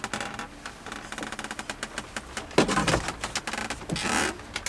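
Rain pattering on a camper van's roof in rapid, irregular ticks. Over it, an overhead cabinet is opened by hand: a creak about two and a half seconds in and a scrape near the end.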